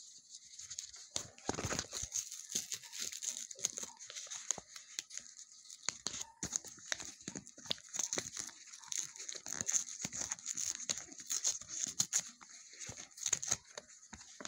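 Paper envelope being torn open by hand, with irregular ripping and crinkling of paper as it is worked open with some struggle.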